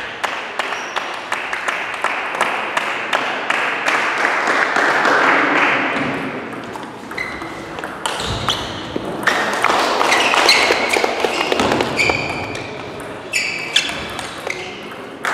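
Table tennis ball clicking off the bats and table during rallies, over a background of voices in the hall.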